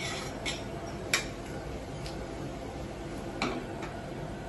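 Metal tongs clicking against an aluminium sauté pan while fettuccine is tossed in it: about five scattered sharp clinks, the loudest about a second in, over a steady background noise.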